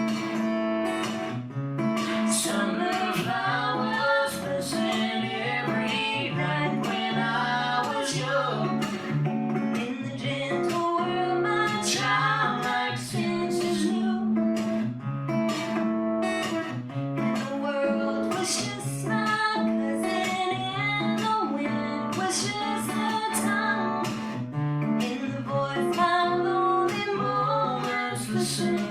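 Live acoustic song: a strummed acoustic guitar with singing over it.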